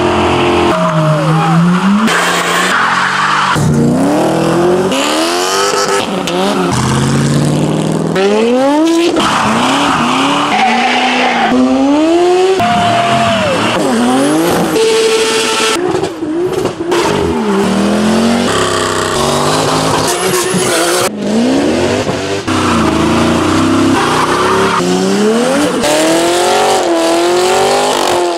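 V8 muscle car engines revving hard and accelerating, the pitch climbing and dropping again and again, with tyre squeal from burnouts. The sound changes abruptly every few seconds.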